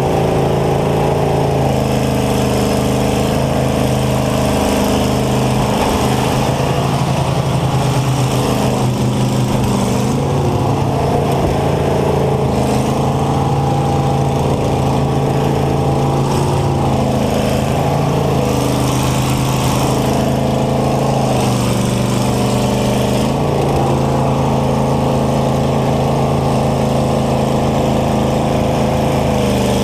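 Combine harvester engine running steadily, heard from inside the driver's cab. Its pitch dips and climbs back several times.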